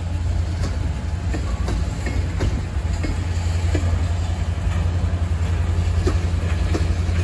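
Freight cars of a long manifest train rolling past: a steady low rumble of steel wheels on the rails, with many short scattered clicks.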